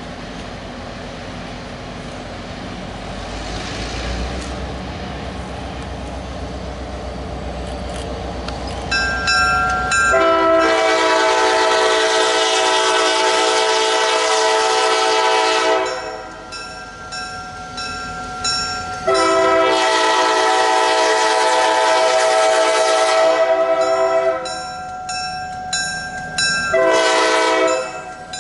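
An EMD GP9H diesel locomotive approaches with a low engine rumble that slowly builds. Its multi-chime air horn then sounds two long blasts, followed by several short ones near the end.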